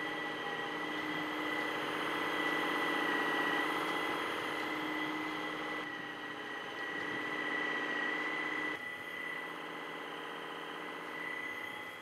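Dyson V12s Detect Slim cordless vacuum running with its Submarine wet roller head on a hard tiled floor: a steady motor whine with a high tone on top, dipping slightly in level about nine seconds in.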